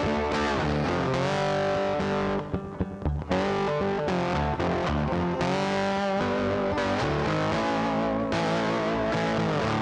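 Background music led by a distorted electric guitar, with a short break about two and a half seconds in.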